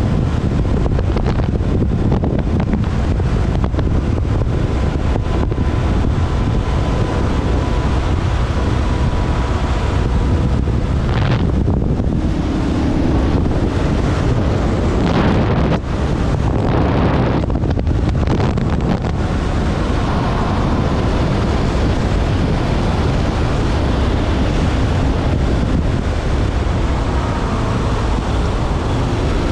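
Heavy wind noise buffeting the microphone on a moving Kawasaki KLR650 motorcycle, with the bike's single-cylinder engine running underneath at a steady pace.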